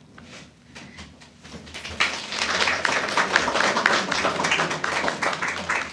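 Applause from a small audience: a few scattered claps that swell into steady applause about two seconds in, then thin out near the end.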